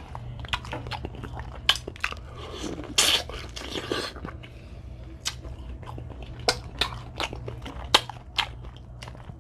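Close-up eating of Dungeness crab: chewing with irregular sharp crunches and clicks.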